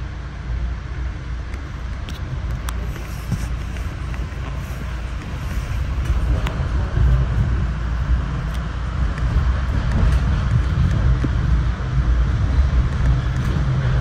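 Running noise of a moving Metro-North passenger train heard from inside the coach: a steady low rumble with wheel-on-rail noise and a few faint ticks, growing gradually louder.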